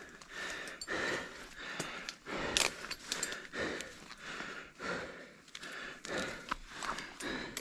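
A person breathing hard in rough, repeated gasps, winded from climbing a rope. A few light clicks and rustles come in between the breaths.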